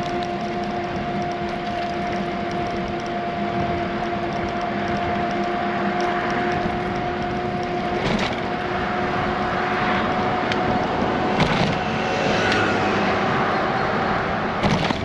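Steady riding noise from a bicycle on the move: tyre rumble and air rush under a constant hum, broken by a few sharp knocks, one about halfway through and two more toward the end.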